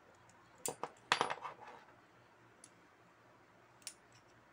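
Allen wrench clicking and clinking against the metal chain tensioner bracket as a small screw is tightened: two sharp clicks, then a rattling cluster about a second in, and a couple of faint clicks later.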